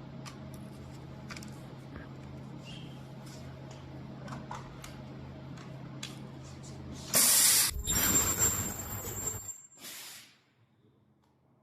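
Ultrasonic plastic welding machine running a weld cycle. A steady machine hum with light clicks is followed, about seven seconds in, by a loud hiss and then about two seconds of loud hissing noise carrying a high steady whistle, as the ABS parts are welded. A last short hiss comes near the end, after which the hum has stopped.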